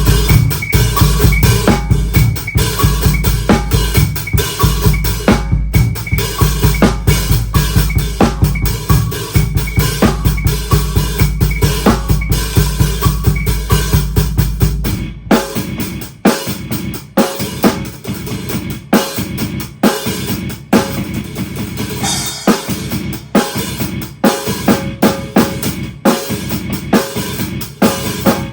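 Drum kit played fast and busy, with bass drum, snare and rimshot hits, mixed with electronic sound effects. A deep, sustained low layer runs under the drumming and drops out about halfway, leaving the kit on its own.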